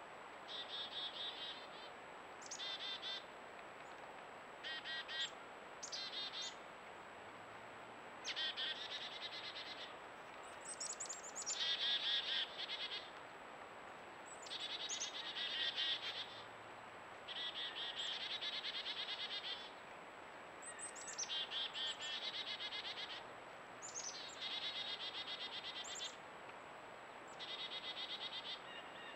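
Repeated high-pitched trilling calls, each opening with a quick downward slur and running a second or two, about eleven in all, over a faint steady hiss.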